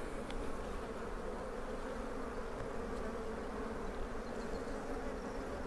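A mass of honeybees buzzing around an opened hive with its frames out: a steady, even hum.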